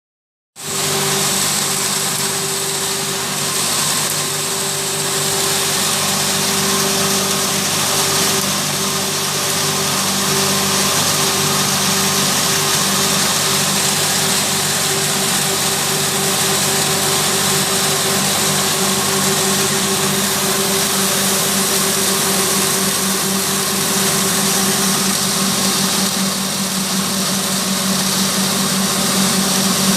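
Maize-grinding machine for cattle and poultry feed running steadily: a constant mechanical hum with a dense hiss over it.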